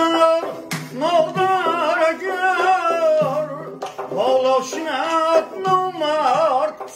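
A man singing a Tajik song in a wavering, ornamented line, accompanied by a tar (long-necked plucked lute) and a doira frame drum. The voice comes in about a second in over the strummed strings and drum strokes.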